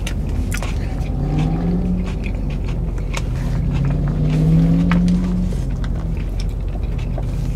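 Steady low rumble of a car running, heard from inside the cabin, with a low droning tone that swells twice. Small clicks and rustles of food being handled from take-out containers.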